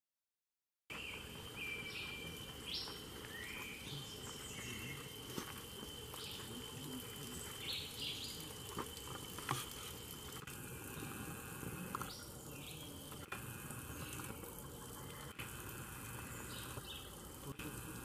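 Forest ambience starting about a second in: a small stream of water trickling, with a steady high insect drone and short, rising bird chirps scattered throughout.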